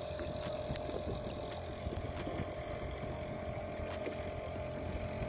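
Water lapping and slapping against the hull of an anchored boat, with a steady hum underneath and a few faint clicks.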